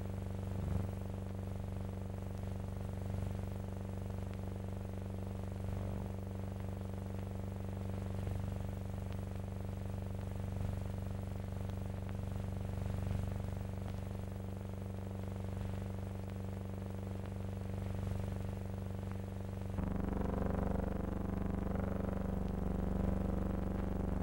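Steady drone of a stunting biplane's engine overhead, heard on an old, hum-laden film soundtrack. A wavering higher sound joins near the end.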